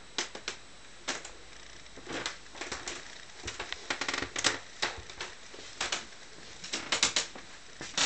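Footsteps on a wooden floor: irregular clicks and knocks, some with a short creak.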